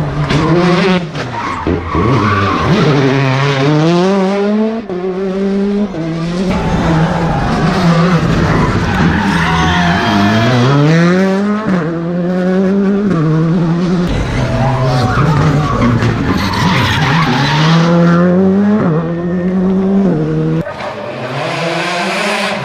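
R5 rally car with a turbocharged four-cylinder engine driven hard through a tight spectator stage. The engine revs climb and drop sharply again and again as it shifts gear and brakes for corners, with tyres squealing.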